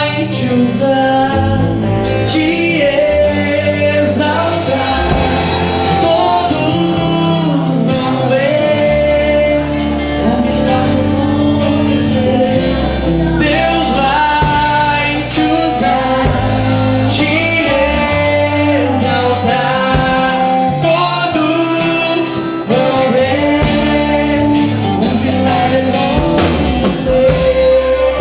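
Worship band music: a sung melody carried over guitar and a steady bass line.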